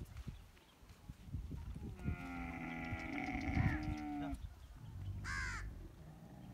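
A camel's long moaning call, starting about two seconds in and lasting over two seconds, dipping slightly in pitch at the end. A short high-pitched call follows about five seconds in.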